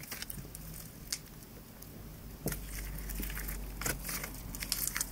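Hands stretching and folding a glossy, sticky slime: irregular sticky crackles with scattered sharp pops and clicks as it pulls apart and presses together.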